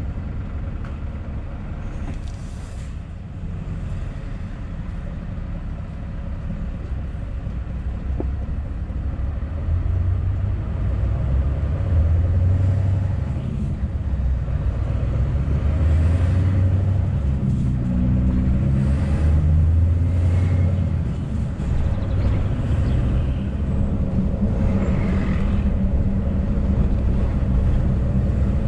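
Scania S650's 16-litre V8 diesel engine running as the lorry drives at road speed, a steady low drone whose note rises and falls. It gets louder from about ten seconds in as the engine pulls harder.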